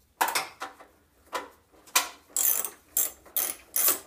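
Hand ratchet wrench clicking in several short strokes as a bolt on the engine is wound in and tightened.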